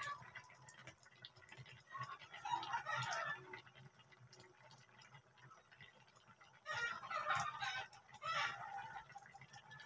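Chickens clucking and a rooster crowing, heard in three short spells: about two seconds in, near seven seconds, and again just after eight.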